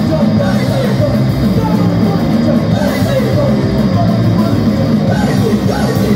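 A punk rock band playing live and loud: electric guitars and a drum kit.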